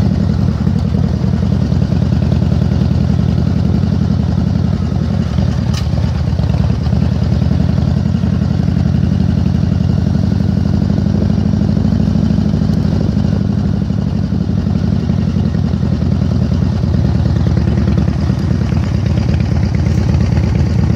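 Cruiser motorcycle engine running steadily at low speed, a fast low-pitched beat heard from the rider's seat.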